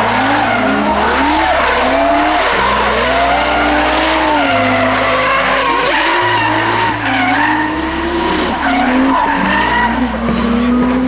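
Drift cars sliding through a corner: engines revving hard, their pitch repeatedly rising and falling as the throttle is worked, over continuous tyre screech.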